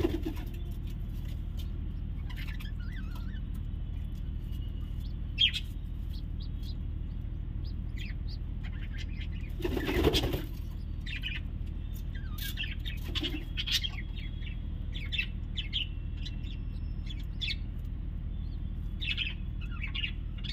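Pigeon squabs in the nest chirping and squeaking in short, scattered calls while the parent feeds them, with a short rustling burst about ten seconds in, over a steady low hum.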